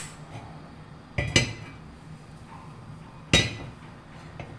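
Metal pan and kitchen utensils clinking on the stove: a quick pair of sharp clinks about a second in and a louder single clink a little past three seconds.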